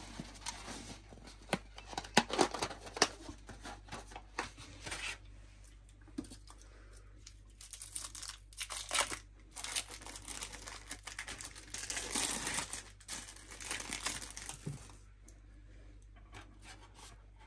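Intermittent crinkling and tearing of thin plastic wrap as processed cheese slices are peeled from their wrappers, along with the rustle of a paperboard burger box being handled. It goes on in bursts and dies down near the end.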